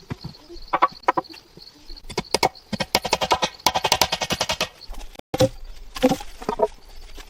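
A fast run of sharp knocks or taps, densest from about two seconds in to nearly five seconds, with a few scattered knocks after a brief cut-out.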